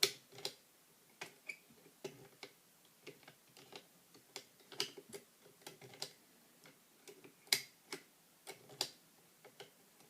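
Lock picks working inside a mortise lock: irregular light metallic clicks and ticks, a few at a time, as the picks are moved against the lock's internals under tension.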